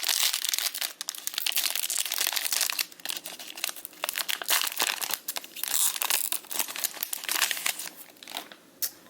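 Wrapping of a trading card pack being crinkled and torn open. It makes a dense crackling that thins out and stops about eight seconds in.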